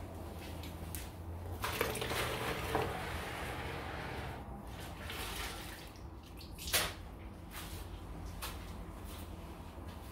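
Water splashing and dripping as a wet mop is dipped and wrung out in a plastic bucket, with a sharp knock about seven seconds in and a few lighter clicks as the mop is handled.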